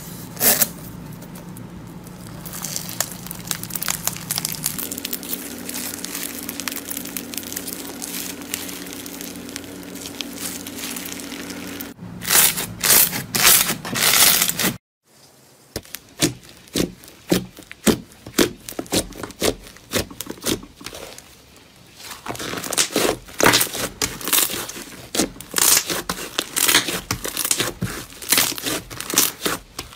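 Slime squeezed and kneaded by hand, giving crinkling, crackling pops. Part of it is a foam-bead (floam) slime. The crackles come in quick runs of squeezes through the second half.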